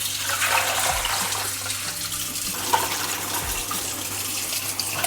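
Kitchen tap running steadily as a coffee maker's pot is rinsed out with fresh water, with a few light knocks of the pot.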